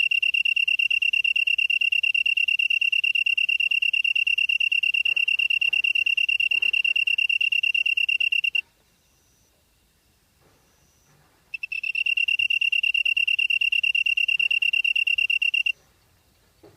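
A singing grass insect giving a loud, steady, high-pitched trill made of very fast pulses. It breaks off about halfway through, resumes a few seconds later, and stops again shortly before the end, leaving only faint chirps from more distant insects.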